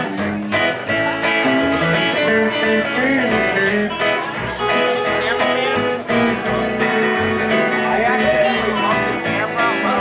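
Country band playing an instrumental intro: electric guitar picking a lead line over strummed acoustic guitar and a plucked upright double bass keeping the beat.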